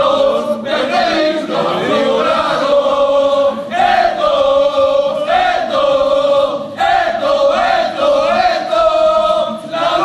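A group of football supporters singing a chant together at full voice, many voices in unison in short repeated phrases with held notes.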